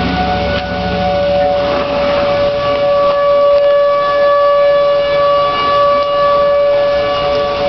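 Outdoor tornado warning siren sounding a steady, held wail.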